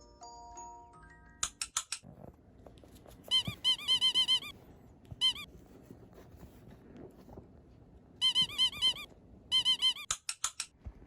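Rapid squeaks from squeakers on a Maltese puppy's feet, one per step as it trots, in runs of several quick squeaks with pauses between. Each squeak is a short rise-and-fall in pitch.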